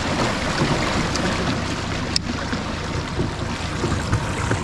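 Water washing and wind noise on an open boat, with no steady motor tone, and one sharp click about two seconds in.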